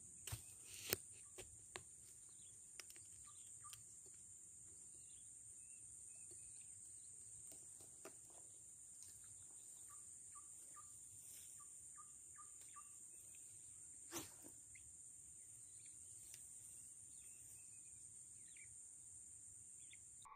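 Steady high-pitched insect chorus, a continuous trill, with a few faint bird chirps. A few sharp clicks come in the first two seconds and a louder knock about fourteen seconds in.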